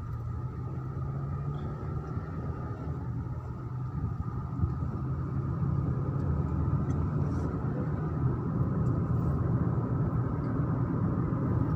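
Car driving along a road, heard from inside the cabin: a steady low engine and road rumble that grows gradually louder.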